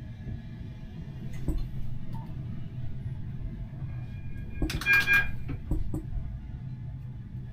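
Steady low hum inside a Siemens Avenio tram's cab, with a short cluster of clicks and knocks and a brief high tone about five seconds in.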